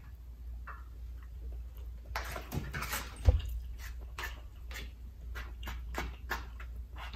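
Close-up eating sounds: chewing a mouthful of jerk chicken with wet lip-smacking and mouth clicks, coming thick and fast at about three a second from about two seconds in. One short low thump sounds about a third of the way through.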